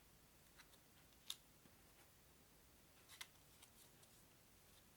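Near silence broken by a few faint clicks of playing cards being laid down on a table: one about a second in and a quick pair a little after three seconds.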